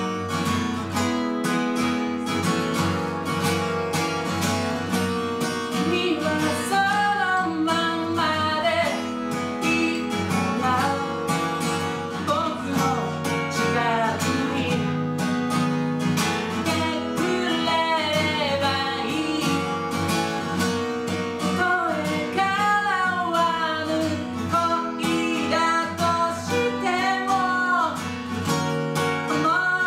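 A man singing to his own strummed acoustic guitar; the guitar plays alone at first and his voice comes in about six seconds in.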